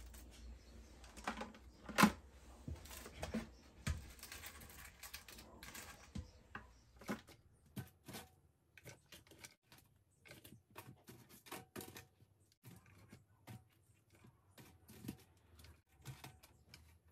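Small crabs handled one by one, taken from a plastic colander and dropped into a plastic jar: their shells and legs make quick, irregular clicks and taps on the plastic, with one sharper click about two seconds in.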